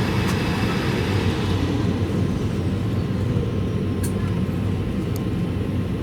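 Airbus A220-300 cabin noise: a steady, loud rumble from the Pratt & Whitney PW1500G geared turbofans and airflow, with a faint whine above it. Two light clicks sound about four and five seconds in.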